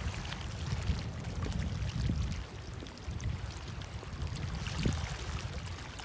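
Wind buffeting the microphone as an unsteady low rumble, over faint splashing of choppy bay water.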